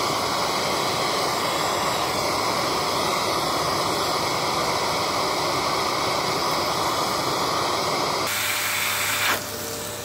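Vacuum cleaner running steadily, a loud rush of air drawn through a hole in a wall to suck a string through. About eight seconds in the sound changes, and a little later it drops somewhat quieter, with a faint steady whine.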